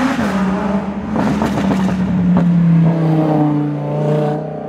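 Lamborghini Huracán's V10 engine pulling hard as the car drives past, loudest a little past halfway and fading near the end as it pulls away.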